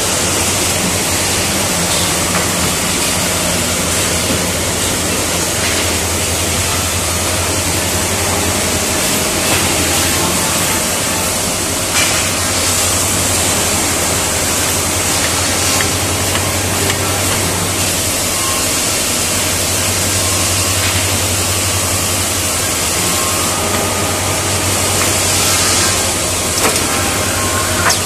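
Liton MHZ1560AX600II automatic finger-joint machine line running: a constant low hum under a loud, even hiss of machinery, with a few sharp knocks, one about twelve seconds in and another near the end.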